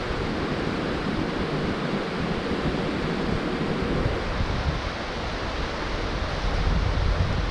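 Small mountain creek running over stones, a steady rush of water, with wind buffeting the microphone, gusting harder near the end.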